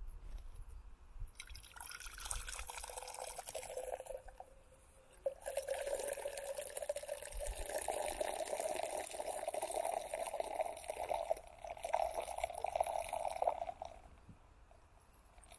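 A man urinating into a drinking glass, the stream splashing and trickling as the glass fills and foams. It comes in two spells, with a short pause about four seconds in, and stops shortly before the end.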